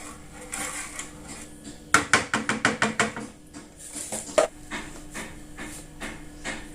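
Metal spoon clinking and scraping against a bowl while stirring sugar into ground lemons, with a quick run of knocks about two seconds in and scattered clinks after.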